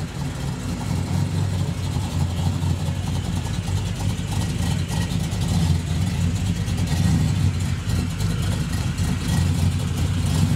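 A car engine running at idle, a steady low rumble that grows a little louder over the first few seconds.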